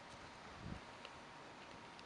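Faint outdoor background hiss with a thin steady tone, a soft low thump about two-thirds of a second in, and a few light ticks.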